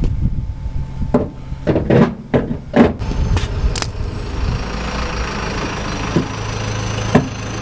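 A few sharp knocks and clunks, then from about three seconds in a steady running sound, most likely the Mazda Miata's four-cylinder engine idling.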